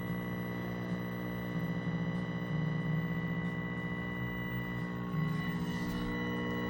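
Vintage 1965 Curtis Mathes tube colour television buzzing steadily as it warms up from power-on. About five seconds in, a short crackling hiss briefly cuts across the buzz.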